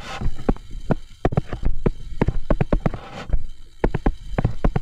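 Stylus tapping and clicking against a tablet screen during handwriting: a rapid, irregular run of sharp taps.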